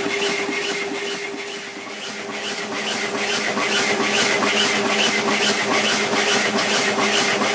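Burrell showman's road locomotive running stationary, driving its dynamo for the canopy lights: a steady hum over a fast, even mechanical beat.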